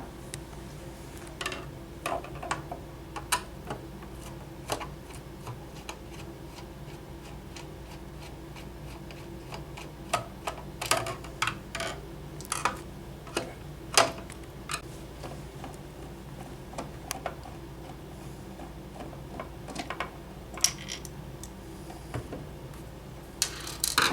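Irregular small clicks and taps of a screwdriver backing screws out of a machine's case, with the odd sharper clack as a screw or tool is handled; a steady low hum runs underneath.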